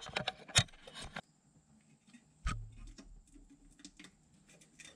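Differential cover of an AMC 20 axle being worked loose and pulled off by hand: a quick run of small metal clicks and taps, then one solid knock about two and a half seconds in, followed by faint scattered ticks.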